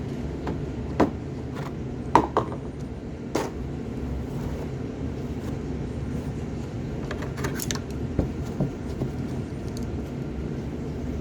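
A steady low rumble with a few sharp clicks and taps of small objects being handled, about one, two and three and a half seconds in, and a cluster of them near seven and a half seconds.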